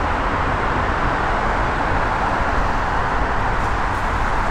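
Steady highway traffic noise: an even, unbroken rush of tyres on the road.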